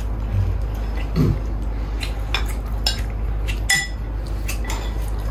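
Spoon and chopsticks clinking against a ceramic bowl of noodle soup as it is stirred and scooped: a string of separate clicks, one near the middle ringing briefly.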